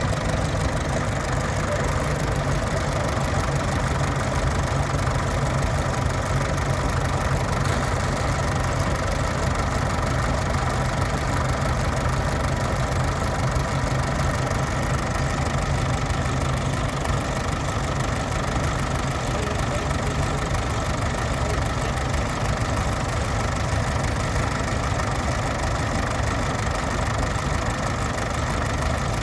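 Tractor engine idling steadily, with no change in speed.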